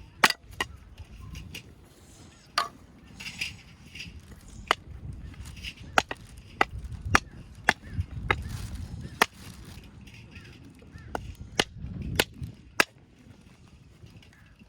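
Small axe chopping and splitting firewood: about a dozen sharp, irregularly spaced strikes of the blade into wood.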